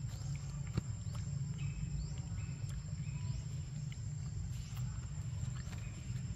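Outdoor forest ambience: scattered short bird chirps and quick rising whistles over a steady thin high tone and a low rumble, with one sharp click just under a second in.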